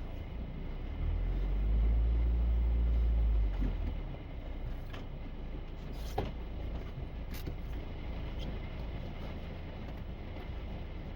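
Four-wheel-drive truck running, a steady low rumble that swells louder for a couple of seconds about a second in, with a few faint knocks.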